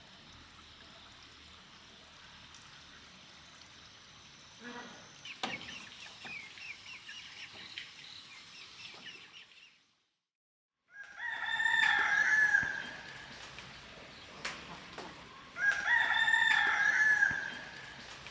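Rooster crowing twice, a few seconds apart, each crow lasting about a second and a half. Fainter chirping comes before them.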